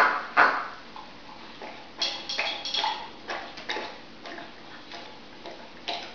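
Giant Schnauzer puppy's claws clicking and scuffing on a tiled floor as it tugs at a plush toy: two sharp clicks at the start, a quick cluster about two seconds in, and scattered clicks after.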